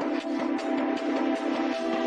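Electronic background music with a steady beat and a repeating bass pattern.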